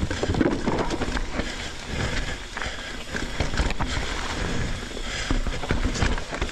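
Mountain bike riding fast down a rough dirt trail: wind rushing over the microphone and tyre rumble, with frequent knocks and rattles from the bike over the rough ground.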